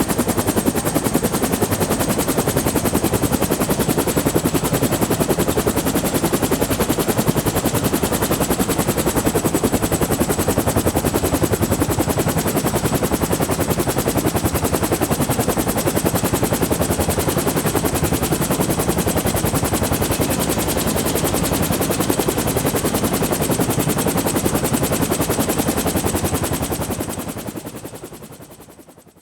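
Bell 212 helicopter running steadily, heard from outside: the rapid chop of its two-blade main rotor over the high, steady whine of its twin turboshaft engines. The sound fades out over the last few seconds.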